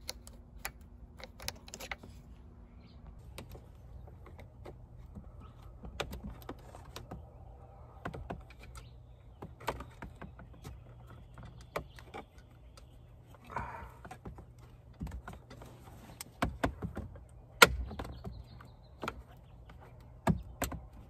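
Irregular plastic clicks and taps from a plastic trim removal tool prying at a stubborn wiring-harness push pin on the windshield frame. One sharp click late on is the loudest.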